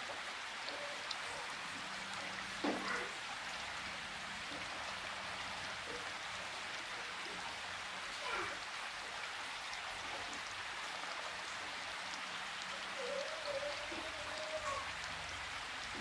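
Steady, even hiss like falling rain. A few faint, short sliding calls or squeaks sit on top of it, about 3 s and 8 s in and a wavering one near the end.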